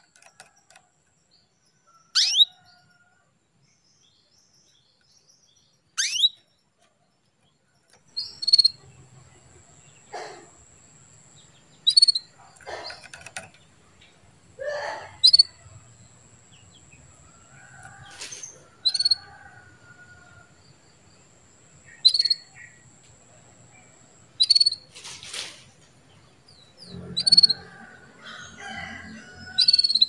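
Female domestic canary calling with short, sharp chirps: two steep rising ones early, then a chirp about every three seconds. This is the hen's call that stirs male canaries into breeding condition and song.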